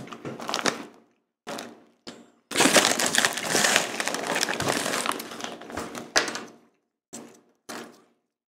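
A Goldfish snack bag crinkling loudly for several seconds as a hand grabs and handles it, with short crunches of crackers being chewed before and after.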